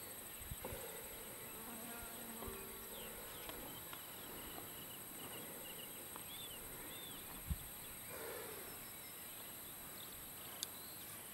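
Faint, steady high-pitched insect buzzing in open grassland, with a few faint short chirps and a single soft thump partway through.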